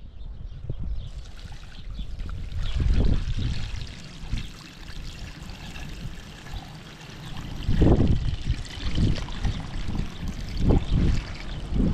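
Water pouring and trickling, with several low rumbling swells.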